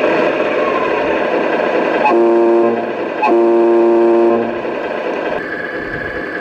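Remote-control semi truck's air horn sounding twice, a short blast about two seconds in and a longer one just after, over a steady engine sound.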